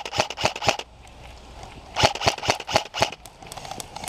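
Airsoft rifle firing rapid single shots, about five a second, in two strings of about five shots each: one at the start, and one beginning about two seconds in.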